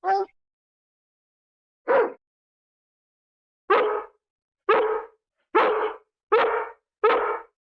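Dog barking: a single bark at the start, another about two seconds in, then a run of five barks a little under a second apart.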